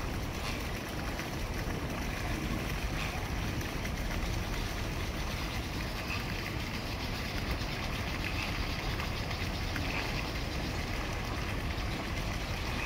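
Steady outdoor background noise with a low rumble, unchanging throughout, with a few faint short higher sounds now and then.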